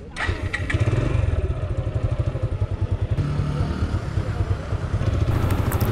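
Motorcycle engine running at low revs, its exhaust giving a steady, rapid low pulsing.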